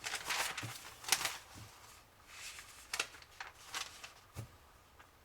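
Paper rustling as pages of a manual are handled and turned, in several short bursts.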